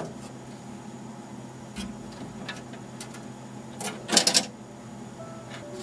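Cable ties inside the rack chassis being cut with cutters: a few small clicks, then a louder quick clatter of sharp snaps about four seconds in.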